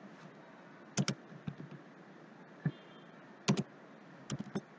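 Scattered key presses on a computer keyboard, some in quick pairs, as a number is typed into a field. They come as sharp separate clicks over a faint steady hiss.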